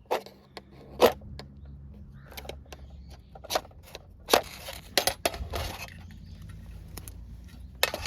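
Irregular sharp metallic clinks and scrapes of cooking utensils against metal cookware, the loudest about a second in and again past four seconds.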